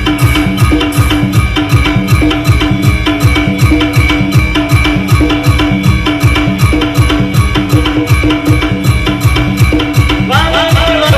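Zankar band music played loud: a fast, steady drum beat with a held tone above it, and a melodic line entering near the end.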